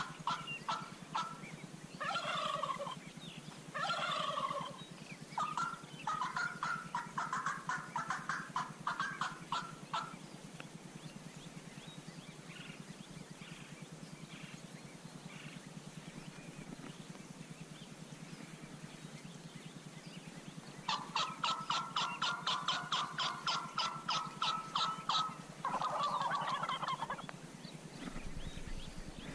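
Wild turkey toms gobbling, several rapid rattling gobbles in a row, in one run during the first ten seconds and another about two-thirds of the way in.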